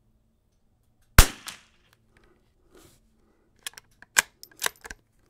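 A single .22 LR rifle shot about a second in, a short sharp crack with a brief echo. Near the end comes a quick run of sharp metallic clicks, the bolt being worked to eject the case and chamber the next round.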